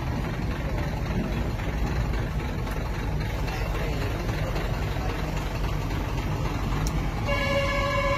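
Steady low rumble of an idling engine. About seven seconds in, a steady tone with overtones joins it.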